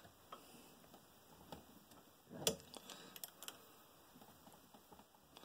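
Faint, scattered metallic clicks of a hex key working the set screw on a cam of a hand-crank leather sewing machine while it is tightened down, with one sharper click about two and a half seconds in and a few more just after.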